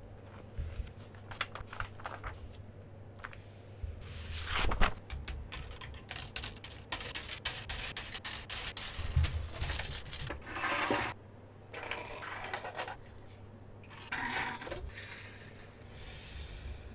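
Plastic model-kit runners and a paper instruction manual being handled on a wooden desk: scattered plastic clicks and clatter with short bursts of rustling, over a faint low hum.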